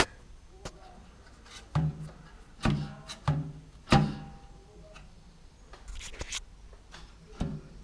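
Jaguar 3.8 heater-case vent flaps, freed off with oil and edged with new weather seal, swung open and shut by hand. There are four sharp clunks, each with a short ring, over about two seconds, then fainter handling sounds. The flaps move freely.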